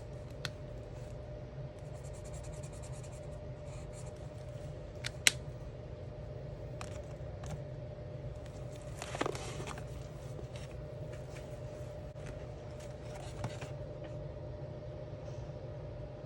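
Alcohol marker nibs stroking and scratching on coloring-book paper, with a few sharp clicks, the loudest about five seconds in, over a steady low hum.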